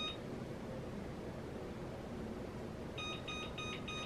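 Electric range's control-panel keypad beeping as buttons are pressed to set the oven timer and temperature. There is one short beep at the start, then four quick beeps about three a second, starting about three seconds in.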